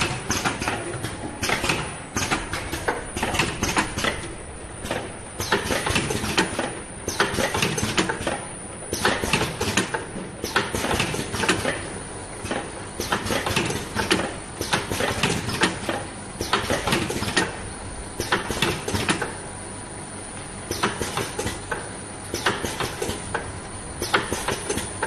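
Automatic bottle filling and capping line running, with plastic bottles clattering and knocking along the conveyor in irregular, closely spaced bursts over a steady machine noise.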